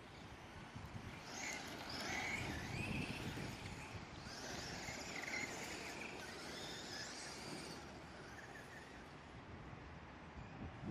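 Traxxas radio-controlled trucks driving fast over loose dirt, their motors and drivetrains whining in a pitch that rises and falls as they accelerate and back off, over gritty tyre noise. The whine is loudest between about one and eight seconds in.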